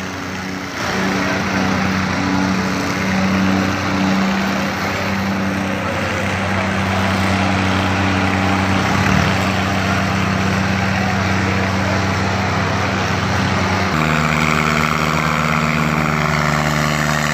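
John Deere tractor diesel engines running hard under heavy load in a tractor tug-of-war. The engine note is steady, then jumps to a different pitch about fourteen seconds in.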